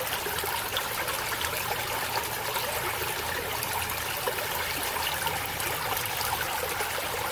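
Steady rush of running water from a small waterfall and stream at low late-summer flow, splashing and trickling evenly.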